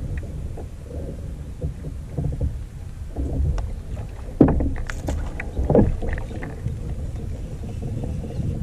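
Kayak on the water: a steady low rumble of water against the hull, with scattered small knocks and two louder knocks about four and a half and six seconds in.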